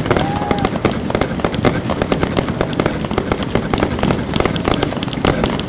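Fireworks going off: a dense, continuous crackle of many rapid pops and bangs.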